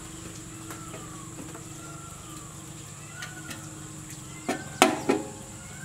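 A metal spoon clinks sharply against a steel bowl three times in quick succession near the end, as masala is scooped and knocked into the pot. Under it runs a steady low hum with faint rising-and-falling whistles.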